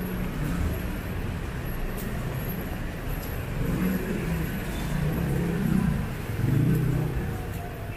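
Street traffic: vehicle engines running and passing close by, swelling louder in the second half.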